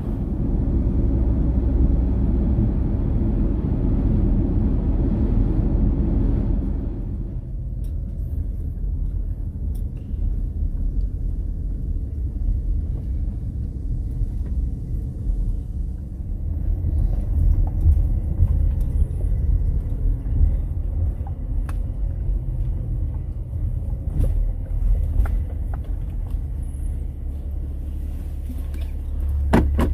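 Inside a Porsche car's cabin while driving: steady tyre and road noise over a low engine rumble. About seven seconds in the road noise drops away as the car slows to a crawl, leaving the low rumble with a few light clicks and a sharp knock near the end.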